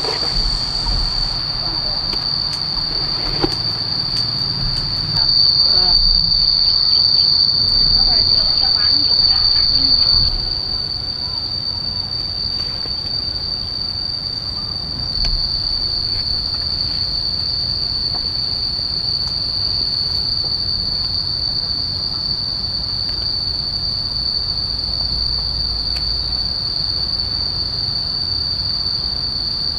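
Loud, steady chorus of insects: one shrill high note that swells louder for about five seconds a few seconds in, eases back, then holds steady.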